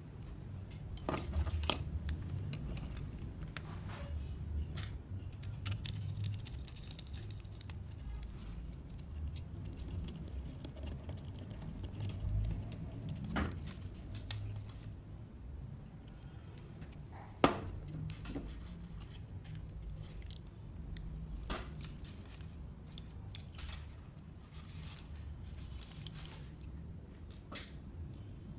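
Scattered light clicks and knocks of small kit parts being handled and fitted together: a circuit board, laser-cut wooden plates and servos. One sharp click a little past halfway, over a steady low rumble.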